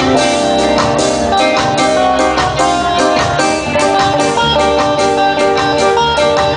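A live band playing, with electric guitars and a drum kit keeping a steady beat.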